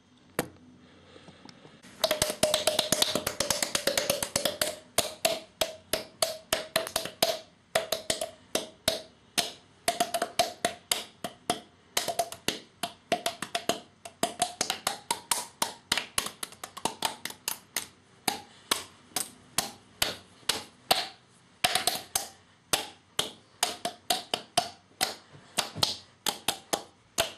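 Cheek pops made with the mouth, repeated over and over: a fast run of pops starting about two seconds in, then a steady train of about two to three a second. Each pop has a hollow pitch that shifts a little as the mouth changes shape, briefly rising in the middle of the run.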